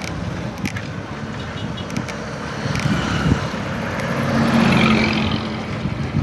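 Motor vehicle engine and road noise, with one engine growing louder and nearer about four seconds in, then fading.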